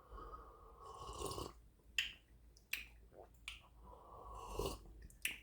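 A man slurping sips of freshly brewed hot coffee, twice, with a few short clicks in between.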